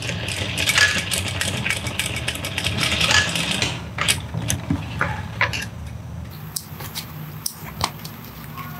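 Industrial sewing machine stitching in a quick run for about four seconds, its motor humming steadily underneath throughout. After that come a few separate sharp clicks as the work is handled and the threads are cut with scissors.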